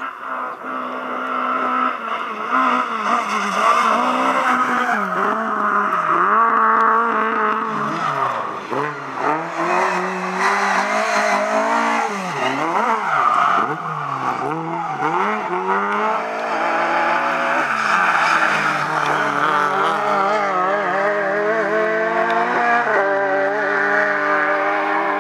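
Rally car engines revving hard, their pitch rising and falling sharply with gear changes and throttle lifts, fastest in the middle, with tyres skidding as the cars slide through corners. Several cars in turn, Lada saloons among them.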